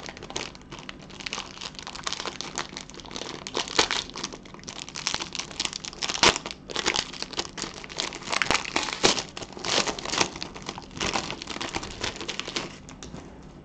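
Foil wrapper of a Panini Spectra basketball card pack being torn open and crinkled in gloved hands: irregular crackling with a few sharper snaps, dying away near the end.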